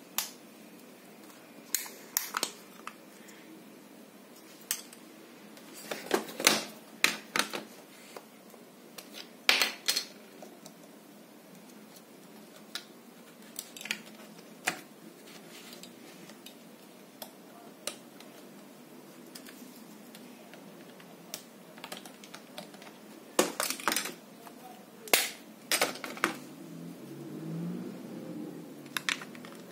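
Sharp clicks and rattles of hard plastic being handled, in scattered bursts: the casing and snap-off battery cover of a TV remote control. The densest clusters come about six, ten and twenty-four seconds in.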